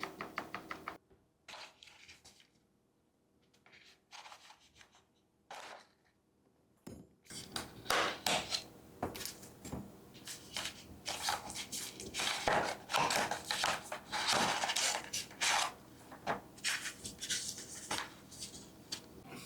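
Hand-handling noise: clicks, taps and rustles of objects being moved about on a hard surface. A few scattered clicks come in the first seven seconds, then a dense run of clattering follows.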